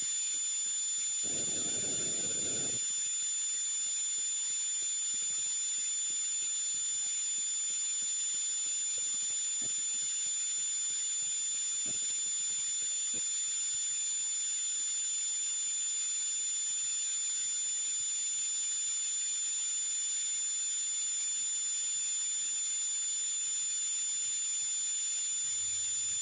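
A steady high-pitched whine over hiss, unchanging throughout. A brief soft rustle comes about a second in.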